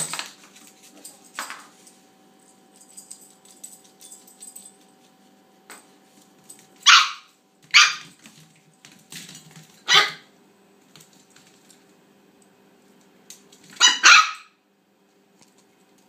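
Toy Australian Shepherd puppy giving sharp, high-pitched play barks at a rawhide bone: a handful of single yaps a second or two apart, with two in quick succession near the end.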